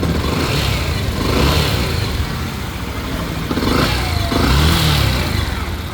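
Yamaha FZ V2's single-cylinder engine running and revved up and back down twice, without the whining 'gui gui' noise it used to make under throttle: the sound is fixed after the fault in the lighting coil under the magneto cover was dealt with.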